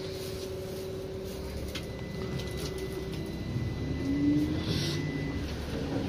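Inside a PTZ-5283 trolleybus while it runs: the electric drive whines in steady tones over the low running rumble, and one tone rises in pitch at the loudest moment about four seconds in.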